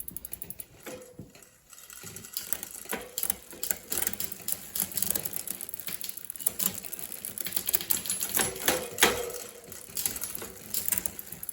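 Rapid, irregular clicking and ticking of a bicycle drivetrain turned by hand: the chain running over the rear cogs and the rear hub's freewheel ratcheting, with a few louder knocks near the end.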